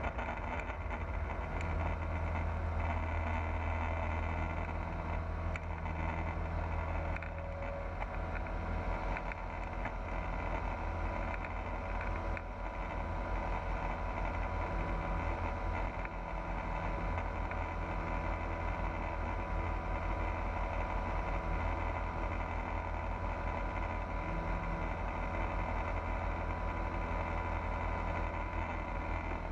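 Pipistrel Virus light aircraft's piston engine and propeller running with a steady drone.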